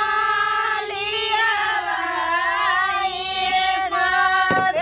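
A single high voice singing a slow melody in long held notes that waver and glide between pitches.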